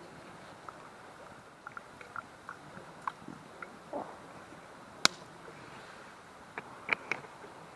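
Wood fire crackling: scattered sharp pops and clicks over a steady hiss, the loudest about five seconds in and a quick run of pops near the end.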